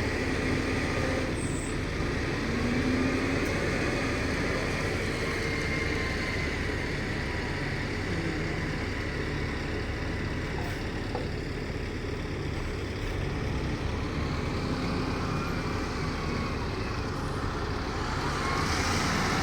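Heavy diesel machinery running steadily, an even engine sound with no change in speed.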